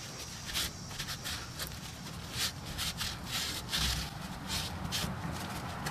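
A shop towel wiping and rubbing inside the bearing bore of a wheel knuckle: a series of short, irregular swishes. The bore is being cleaned of debris before the new hub bearing goes in.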